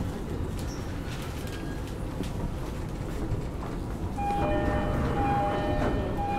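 Inside a JR East E231-0 series commuter car: a steady low rumble from the train, then from about four seconds in the two-tone door chime sounds, a higher and a lower note alternating three times, with a thump at the very end.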